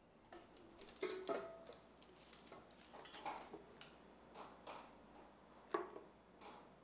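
Hard objects being handled and set down: a series of light, irregular clicks and knocks, one or two early ones ringing briefly like ceramic or glass.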